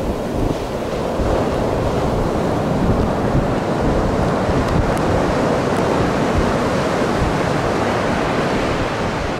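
Ocean surf breaking and washing, with wind buffeting the microphone: a steady, even rush of noise with no tune or voice in it.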